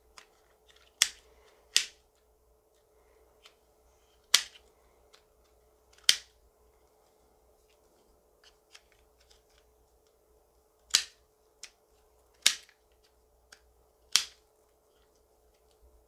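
Silicone bubbles on a pop-it fidget ball being pressed in one at a time, each giving a sharp pop, with about seven loud pops and fainter ones between at irregular spacing.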